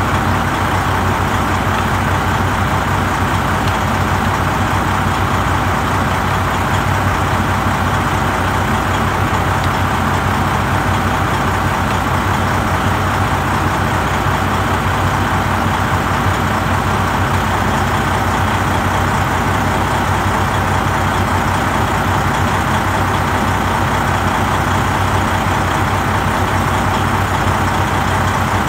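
A machine running steadily and unchanging, with a constant hum, like an engine idling.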